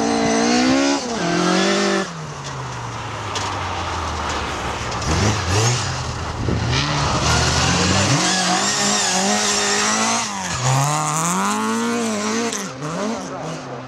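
Rally car engine revving hard, its pitch climbing and dropping again and again with gear changes and throttle lifts. The engine sound changes abruptly about two seconds in and again later, as if a different car or pass takes over.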